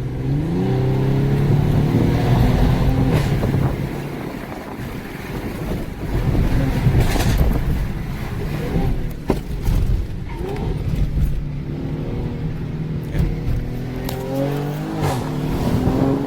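Mercedes-AMG GLE 43 Coupé's twin-turbo V6 engine pulling under acceleration, its pitch climbing several times with steadier running between, over road noise.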